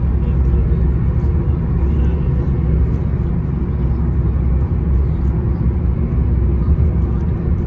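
Car driving on the road, heard from inside the cabin: a loud, steady low rumble of road and engine noise.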